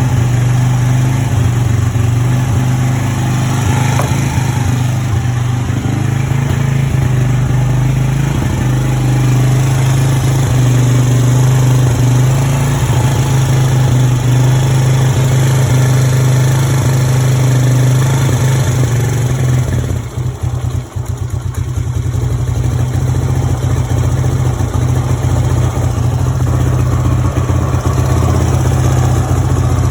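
E-ton Yukon 110 ATV engine running at a high, slightly rough idle after a carburetor cleaning, with a brief dip and stumble about two-thirds of the way through. The rough running is typical of a carburetor still partly fouled by old, stale gas.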